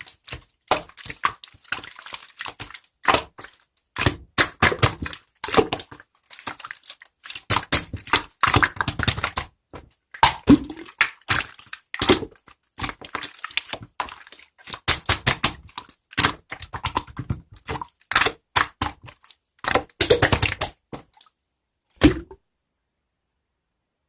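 Dense clicking and tapping in quick, irregular bursts, stopping about two seconds before the end.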